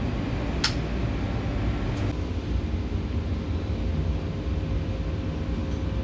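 Power isolator switch for an air conditioner being switched on: one sharp click a little over half a second in, and a fainter click about two seconds in, over a steady low rumble.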